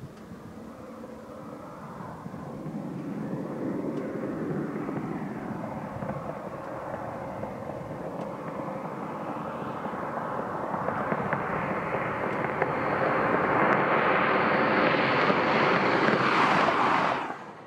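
Two first-generation Acura NSX sports cars approaching, the note of their V6 engines growing steadily louder as they come near, then cutting off suddenly near the end.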